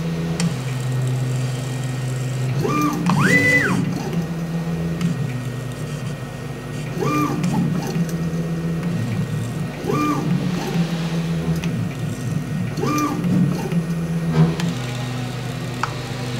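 A CNC mill's motors and drive system running a drag-engraving program, with a carbide scriber scratching numerals into anodized aluminium: low steady hums that step in pitch as the axes move, and short whines that rise and fall every few seconds on the quicker moves. It is the creak and groan of the motors and drive system, which doesn't sound good.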